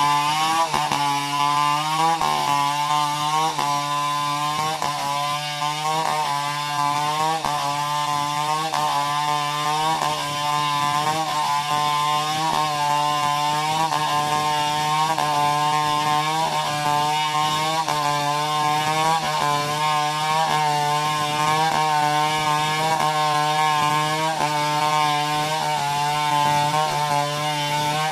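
Chainsaw running at high revs as it cuts through a coconut palm trunk, its engine note wavering in a steady rhythm a little faster than once a second as the saw works through the wood.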